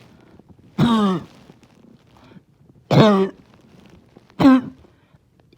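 A person's barking cough: three harsh coughs about a second and a half to two seconds apart, each dropping in pitch.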